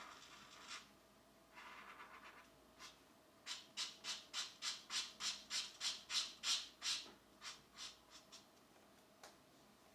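Coloured pencil scratching on paper: a couple of short scratches, then a run of quick back-and-forth colouring strokes at about three a second that swell and fade away near the end.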